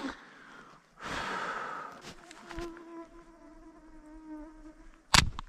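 A flying insect buzzing close by, a steady hum lasting about three seconds. Just before it comes a second-long rush of noise, and near the end a loud, sharp bang.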